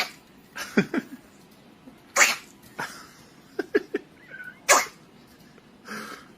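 A cat making a run of short, sharp breathy bursts, roughly one a second, with a few brief squeaky notes around the middle.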